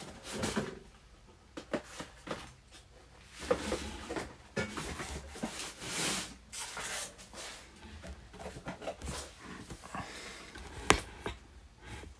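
Scattered rustling and handling noises with light clicks, and one sharper click about eleven seconds in.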